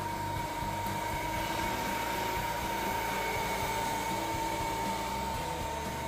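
Battery-powered barbecue blower made from an old hair dryer, its high-speed DC motor running steadily with a constant whine over the rush of air, fanning the charcoal.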